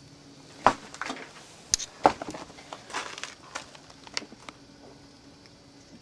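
Handling and footstep noise: a string of sharp, irregular knocks and crunches. It starts about half a second in, is loudest in the first couple of seconds and dies out after about four and a half seconds.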